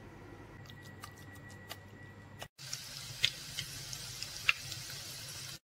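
Chopped garlic sizzling in hot oil in a pan, with several sharp crackles and pops; it starts abruptly about two and a half seconds in, after a faint stretch with a few light ticks.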